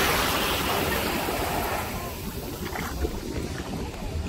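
Shallow surf washing up onto a sandy beach, louder in the first second and then easing off, with wind rumbling on the microphone.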